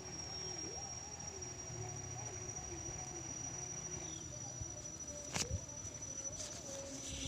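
Steady high-pitched insect drone, with faint wavering lower sounds underneath and a single sharp click about five seconds in.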